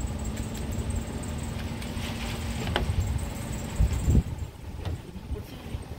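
Electric dent puller (stud-welding spotter) spot-welding a pull pin onto a steel panel: a steady electrical hum, a click near three seconds, then a short, loud jolt about four seconds in as the hum cuts off.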